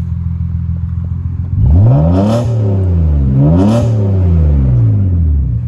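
Nissan Skyline R34's naturally aspirated RB20DE NEO straight-six breathing through a Blitz Nur Spec cat-back exhaust, idling, then revved twice from about a second and a half in, each rev climbing and dropping back to idle.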